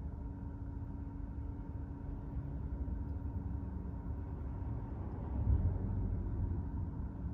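Car driving through city streets: a steady low rumble of engine and road noise with a faint constant hum, swelling briefly about five and a half seconds in.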